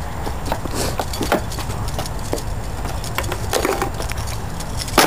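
Skateboard deck and wheels knocking and clattering on concrete pavement in a few scattered taps, with one sharper, louder knock near the end, over a steady low rumble.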